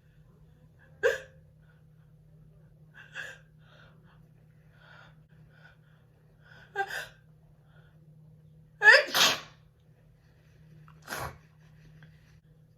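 A woman sneezing several times in a row, about every two seconds, with fainter sounds between the sneezes; the loudest is a pair of sneezes in quick succession about nine seconds in.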